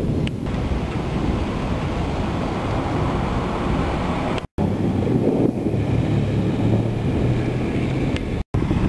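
Steady wind buffeting the microphone, a continuous low rumbling noise. It cuts out briefly twice, about four and a half and eight and a half seconds in.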